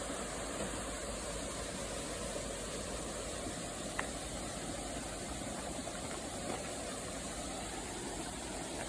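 Small garden stream flowing, a steady even rush of water, with one brief high tick about four seconds in.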